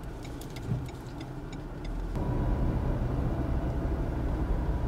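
Car interior: the turn-signal indicator ticking evenly over a low engine and road rumble for about two seconds, then a sudden step to louder engine and tyre noise as the car drives on.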